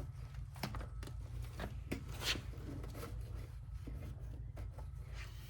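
Scattered light clicks and rustling from the screen's cover strip and cassette being handled and fitted into the track, over a steady low hum.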